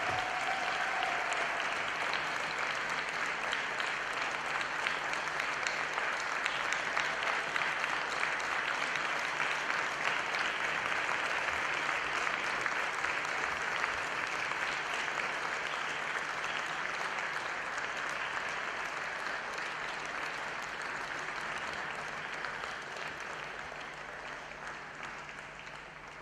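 Large audience applauding steadily, a dense even clatter of many hands clapping, dying away over the last few seconds.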